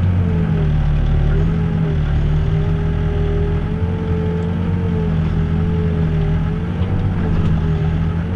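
Backhoe's diesel engine running steadily under working load, its pitch wavering up and down slightly as the operator digs.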